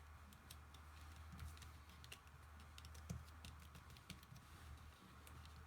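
Faint, scattered light ticks and rustles of paper being handled and creased by hand, over a steady low hum.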